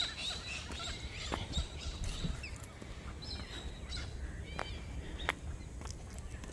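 Wild birds calling in a morning chorus: scattered chirps and whistles, with a few short, sharp calls, over a steady low background rumble.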